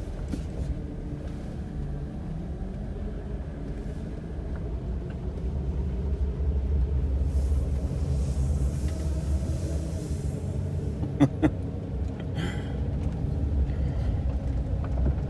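Ram ProMaster van's engine and drivetrain running as it drives off slowly, a low steady rumble heard from inside the cab, growing a little louder about six seconds in. The van has a brand new transmission. Two sharp clicks come a little past the middle.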